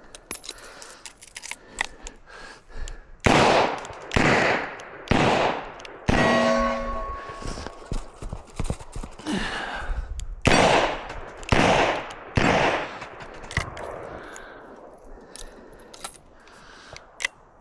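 Smith & Wesson 627 revolver firing: a string of about three shots roughly a second apart, then after a pause of several seconds a second string of about four shots, each ringing out briefly. Light clicks and handling noise come between the strings.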